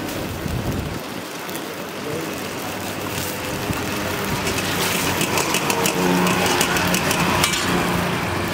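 Steady roadside traffic noise, with an engine hum that grows clearer and louder about five seconds in.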